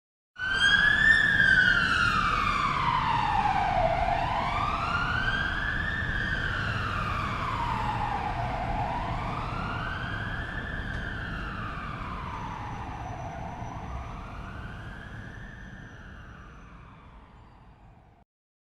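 Police car siren wailing, its pitch sliding slowly down and back up about every four to five seconds, over a low rumble. It fades steadily and stops shortly before the end.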